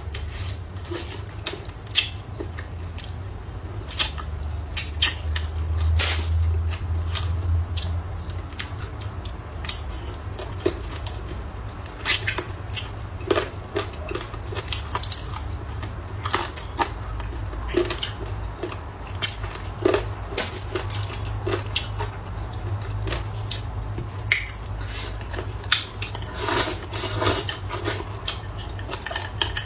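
Eating sounds: chewing, with irregular clicks and taps of utensils against dishes, over a steady low hum.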